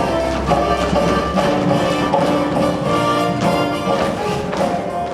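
Instrumental musical-theatre music with a steady beat.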